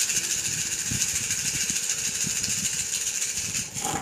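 Cowrie shells shaken vigorously between cupped hands: a dense, continuous rattle that stops near the end as the shells are cast onto the table.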